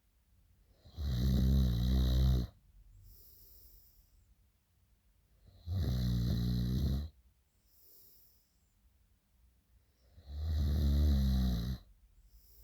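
A sleeping person snoring loudly: three long snores, each about a second and a half, coming about every four and a half seconds, with faint breathy sounds in the gaps.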